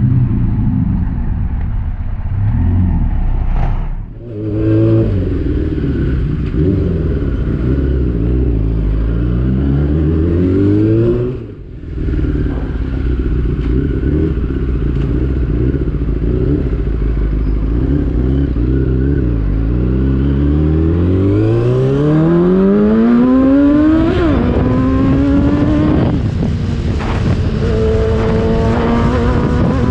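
Yamaha R6's 600cc inline-four engine on a ride, loud, its revs climbing in repeated rising sweeps and dropping back as it shifts up through the gears. The sound briefly drops out twice, about 4 and 12 seconds in. The exhaust is loud, its silencer said to have been taken out.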